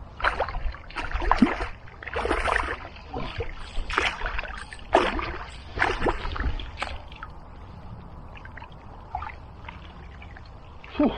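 Irregular splashing and sloshing of water for the first few seconds, settling into the quieter steady rush of a flooded river with a few small clicks.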